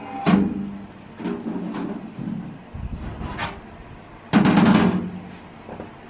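A metal microwave tray and wire rack being handled, knocking and clattering against each other and the oven's metal top in a few separate knocks, with a louder rattling clatter about four seconds in.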